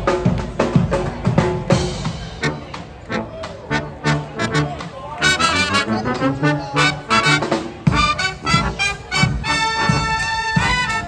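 Upbeat brass-band music with trumpets and trombones over a steady drum beat; the horns come in strongly about five seconds in.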